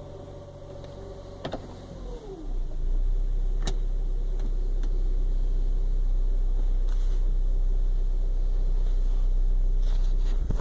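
Hyundai Creta idling as the automatic transmission is shifted into gear: a click, a tone that falls in pitch, then a loud, steady low drone. The owner suspects the drone is the transmission's hydraulic pump pushing cold oil on a morning start, a noise he says stops once the oil warms up.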